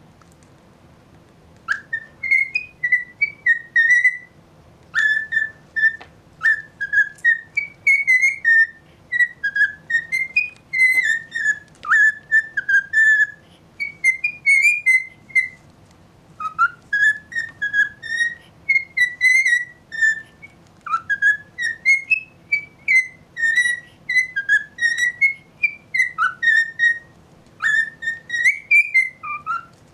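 Male cockatiel whistling its song: phrases of quick, warbling notes that rise and dip, broken by short pauses. It starts about two seconds in and keeps singing.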